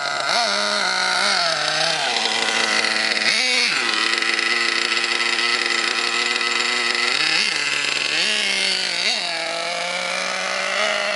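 Redcat Earthquake 3.5 nitro RC monster truck's .21 two-stroke glow engine idling steadily, with several short throttle blips that raise its pitch briefly before it drops back to idle.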